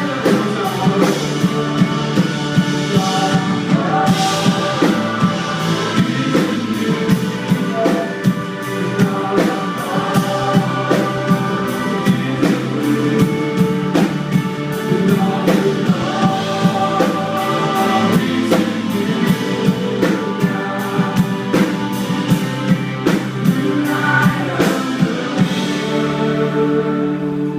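Live worship band playing a song at a steady beat, drum kit over held keyboard and guitar chords; near the end the drums drop out, leaving the sustained chords.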